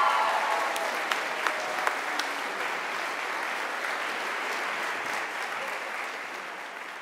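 Crowd applauding and cheering, with a few whoops at the start and some single claps standing out, slowly fading out near the end.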